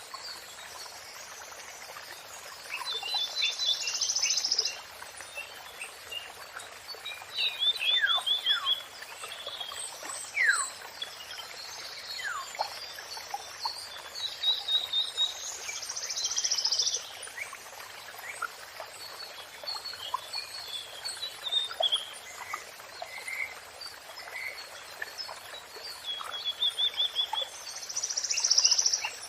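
Songbirds singing: rapid trilled phrases and sharp downward-sweeping whistles, with one loud phrase recurring about every twelve seconds, over a steady background hiss.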